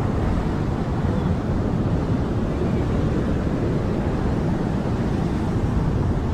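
Ocean surf washing against a rock shelf, mixed with wind buffeting the microphone: a steady rushing noise heavy in the low end.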